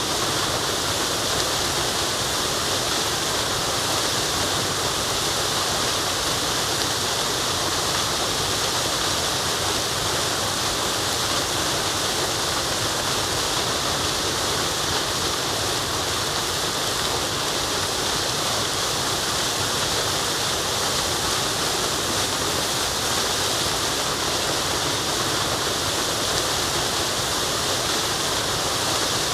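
Waterfall rushing in a steady, unbroken hiss of falling water, strongest in the upper range.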